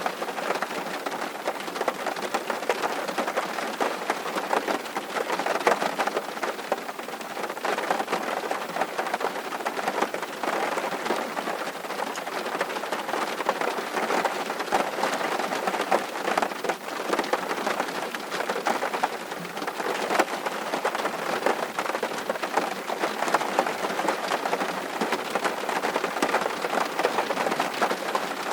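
Steady rain falling, a dense, even patter of drops with no let-up.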